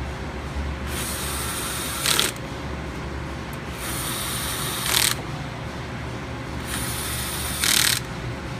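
A screwdriver driving the four cover screws of a Lake flow transmitter home, heard as three bursts of about a second each. Each burst ends in a louder moment as the screw seats.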